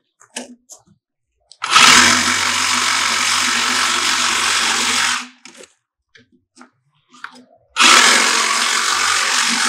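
Electric power saw cutting through 2-inch PVC pool plumbing pipe: one steady cut of about three and a half seconds, then a second cut starting near the end.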